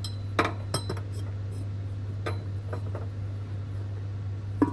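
A few light metal clinks and knocks as the power steering pump pulley is worked free by hand and lifted out, over a steady low hum.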